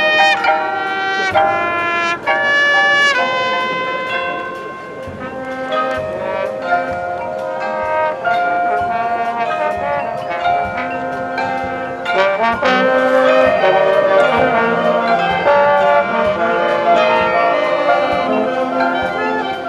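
A high school marching band playing its field show: loud, punchy brass chords at the start, then a softer passage of held notes with mallet percussion. About twelve seconds in, the full band builds back up, with drums striking throughout.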